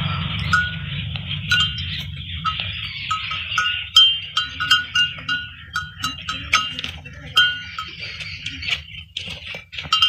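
Small bell tinkling in many short, irregular rings with light clicks, jostled by a calf suckling at its mother's udder.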